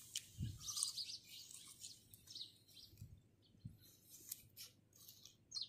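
Birds chirping faintly in short, scattered high calls, with a few soft clicks and mouth smacks from eating.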